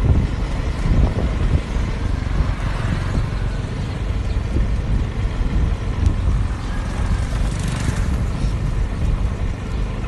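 A moving road vehicle: steady engine and road rumble, with uneven low wind buffeting on the microphone.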